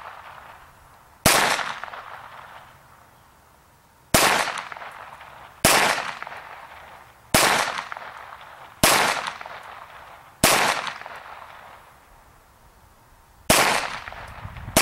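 Ruger SR22 .22 LR semi-automatic pistol fired seven times in slow aimed fire, about one and a half to three seconds between shots with a longer pause before the last. Each sharp crack trails off over a second or so.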